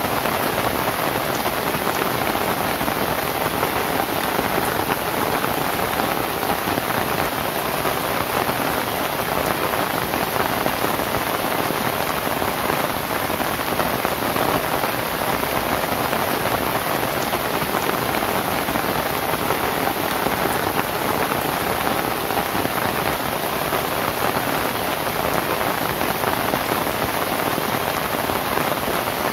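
Steady rain falling on a thatched lontar palm-leaf roof, an even, unbroken hiss of drops with no change through the stretch.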